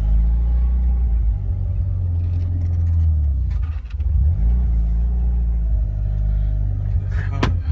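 Mitsubishi Lancer Evolution IX's turbocharged 2.0-litre four-cylinder engine pulling under acceleration, with a brief drop about four seconds in as it shifts from first into second gear, then pulling again. A sharp click sounds near the end.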